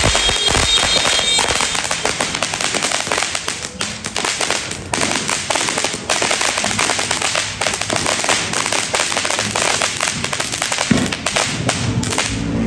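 Many firecrackers and fireworks going off at once: a dense, irregular barrage of overlapping bangs and crackling pops, the noise of a New Year's Eve salubong.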